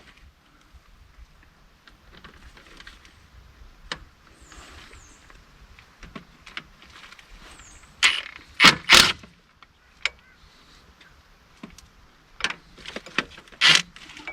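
Wrenches and sockets clinking and clanking against metal while the water pump bolts are undone on a Ford 555 backhoe engine. Scattered small clicks, with a louder double clank about two-thirds through and another near the end.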